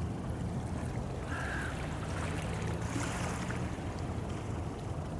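Small waves lapping on a pebble lakeshore over a steady low rumble, with one short bird call about a second and a half in.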